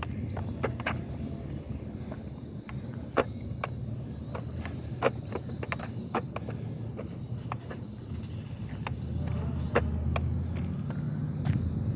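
Strong wind buffeting the microphone as a steady low rumble, with scattered sharp clicks.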